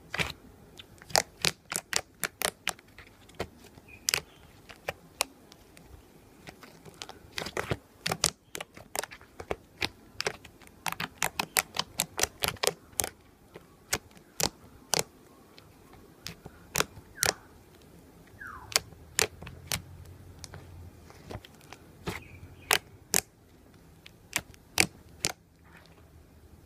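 Crisp slime being squished and played with, giving off sharp crackling pops at an uneven pace, sometimes singly and sometimes in quick clusters.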